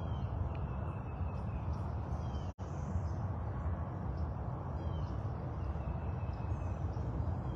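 Outdoor ambience: a steady low rumble with faint bird chirps now and then. The sound cuts out for an instant about two and a half seconds in.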